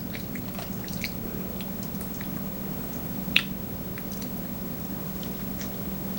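Close-up mouth sounds of someone chewing sushi: soft, wet smacks and small clicks, with one sharper click about three and a half seconds in.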